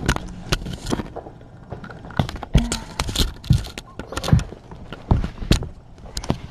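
Irregular close knocks, taps and rustles right at the microphone from a kitten pawing at the camera and brushing its fur against it.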